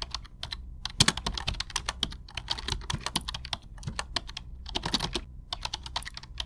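Fast, irregular clicking of computer-keyboard typing, keystroke after keystroke with short gaps, over a low steady hum; the sharpest click comes about a second in.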